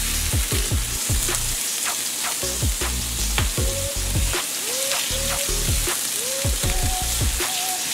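Butter melting and sizzling in a hot stainless steel skillet with minced onion and garlic: a steady frying hiss with many small crackling pops, as a spatula pushes the butter around the pan.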